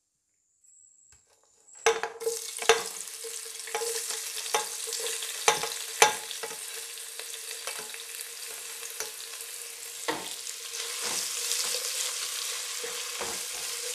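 Sliced onions and green chillies start sizzling in hot oil in a pot about two seconds in, after near silence. They keep frying steadily while a slotted spatula stirring them knocks against the pot now and then.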